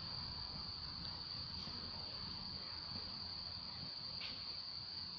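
A faint, steady, unbroken high-pitched whine over a low outdoor rumble, with a short falling chirp about four seconds in.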